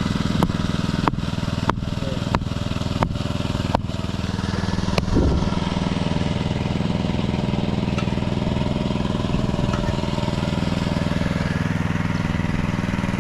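An engine runs steadily throughout. Over it come six sharp knocks about two-thirds of a second apart during the first four seconds, then a single louder knock about five seconds in.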